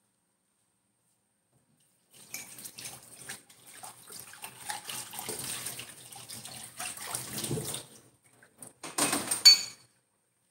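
Water running and splashing in uneven spells, as at a tap, with a louder splash near the end.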